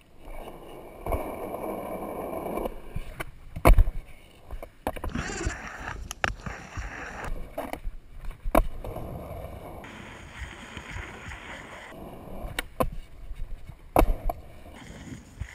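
Skateboard wheels rolling over concrete with a steady hiss, broken by several sharp clacks as the board strikes the ground on tricks and landings. It is recorded through a waterproof camera housing.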